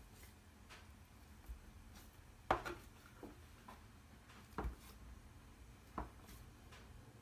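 Stainless-steel bench scraper cutting down through soft dough and knocking on the countertop: a few short, sharp taps, the loudest about two and a half seconds in, with fainter taps between.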